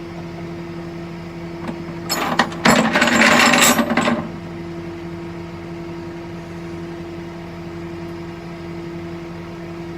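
A steady low engine hum, with a loud burst of metallic clattering and jingling about two seconds in that lasts about two seconds.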